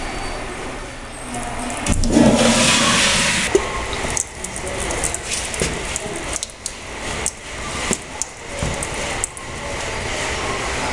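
A toilet flushes with a sudden rush about two seconds in, over a squirted stream of water spattering on a tiled floor. A run of short, sharp taps follows.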